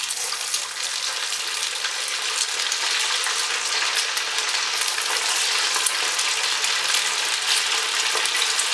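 Potato vermicelli cutlets deep-frying in hot oil: a dense sizzle full of small crackles. It grows louder over the first few seconds as the patties are slid in one after another, then holds steady, the oil hot enough to bubble hard around them.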